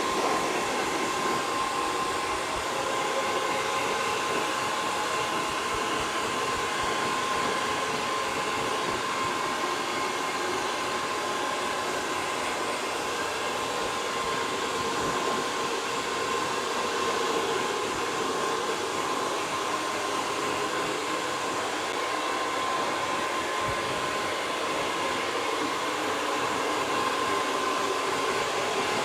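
Handheld hair dryer blowing steadily, its motor giving a constant whine over the rush of air.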